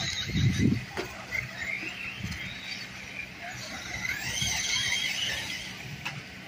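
A radio-controlled off-road car's motor whines, its pitch rising and falling as the throttle is worked through the turns. There is a low thump about half a second in and a couple of sharp clicks.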